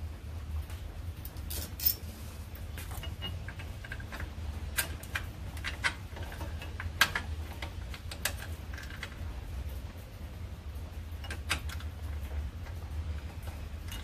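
Scattered light clicks and clinks of bolts and washers being handled and started by hand into a vertical-door hinge bracket, a few sharper ones near the middle, over a steady low hum.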